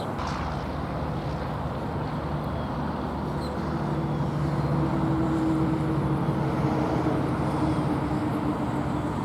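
A motor vehicle's engine hum over a steady low rumble, growing a little louder for several seconds in the middle and then easing off.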